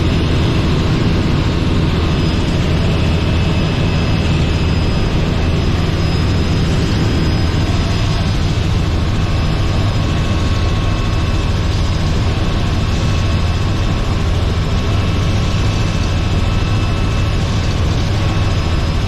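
Robinson R44 helicopter running: a loud, steady drone of its piston engine and rotor that holds unchanged throughout.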